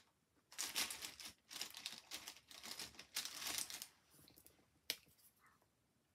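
Alcohol markers being hunted through, rustling and crinkling in bursts for about four seconds, then one sharp click near the five-second mark.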